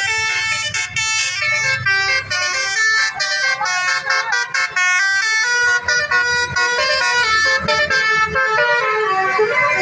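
Basuri telolet bus horn playing a melody: a quick run of short horn notes stepping from pitch to pitch.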